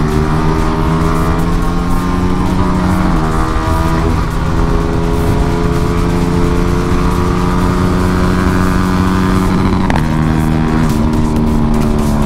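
GPX Demon GR165 motorcycle engine running through an aftermarket Yamaha R15M (Indonesian) exhaust while riding. The revs hold and slowly climb, with a sharp drop in pitch about three seconds in and again near ten seconds.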